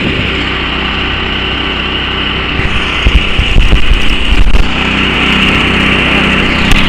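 Portable engine-driven high-pressure air compressor running steadily while it fills a paintball compressed-air tank. From about three seconds in to past the halfway point, low rumbling bumps sound over it.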